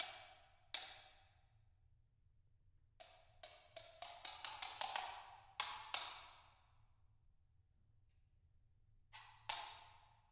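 Solo percussion: sharp struck strokes, each ringing briefly with a bright, pitched decay. Two strokes open, then a quickening run of about a dozen strokes, then two more near the end, with pauses between.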